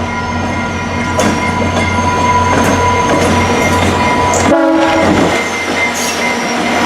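VIA Rail passenger train passing close by, its coaches' wheels clattering steadily over the rails. A short horn note sounds about four and a half seconds in.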